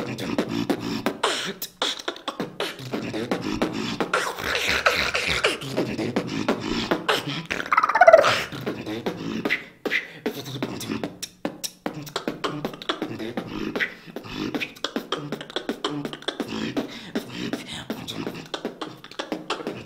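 Solo beatboxing: a fast, dense run of vocal kick, snare and click sounds over low hummed bass tones. About eight seconds in comes a loud falling vocal sweep, the loudest moment.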